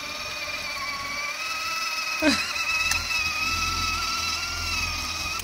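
Electric drive motors and gearbox of a child's ride-on toy Lamborghini running as it drives along, a steady whine with a slight waver in pitch that stops near the end.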